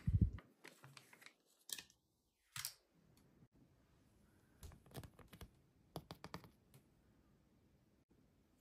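Foil ingredient sachets handled over a plastic toy potion bottle: a dull thump at the very start as a packet is tipped into the bottle, a few light clicks, then a run of crisp crinkling clicks in the middle.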